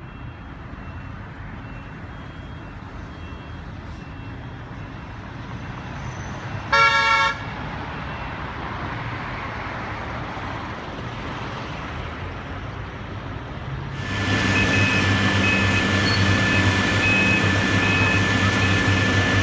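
Street traffic noise with a vehicle horn honking once, briefly and loudly, about seven seconds in. About two thirds of the way through, a louder engine starts running steadily nearby, with a steady high whine over it.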